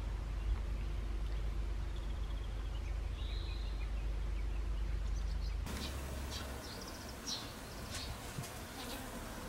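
Outdoor background noise: a steady low rumble with a few faint high bird chirps. About halfway through the rumble drops away and short, high chirps and clicks come in over quieter ambience.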